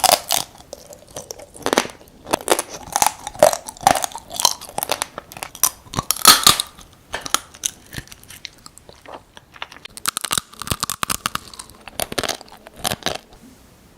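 Close-miked chewing and crunching of soy-sauce-marinated raw crab, the shell cracking between the teeth in irregular bursts of sharp crunches; it stops just before the end.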